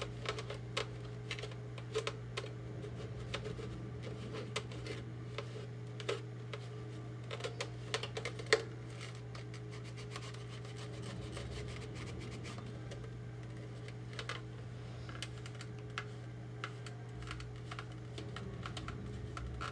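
Cloth rag rubbing and dabbing on a plastic stormtrooper armor piece to work in dirt-coloured weathering paint. Irregular small clicks and taps come from the plastic being handled, with one sharper knock a little before halfway, over a steady low hum.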